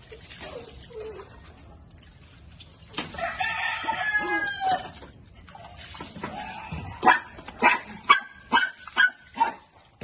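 An animal calling: one long, wavering call of about two seconds, then six short, sharp calls in quick succession near the end.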